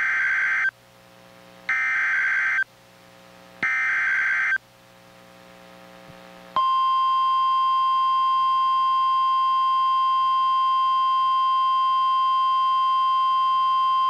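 NOAA Weather Radio emergency alert: three harsh, buzzy SAME digital header bursts of about a second each, spaced a second apart. After a pause of about two seconds, the steady single-pitch 1050 Hz warning alarm tone starts and holds, the signal that a severe thunderstorm warning is being broadcast.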